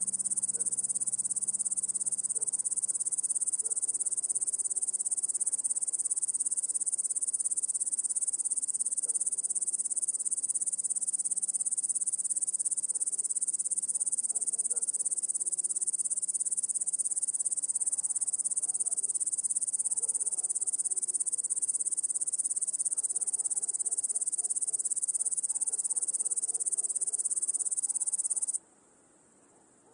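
Dense chorus of crickets: a steady, high-pitched trilling that cuts off abruptly near the end.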